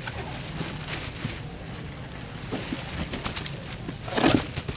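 Blue plastic bag liner rustling and crinkling as it is pulled open and off a styrofoam fish box, with a loud crinkle about four seconds in, over a steady low background hum.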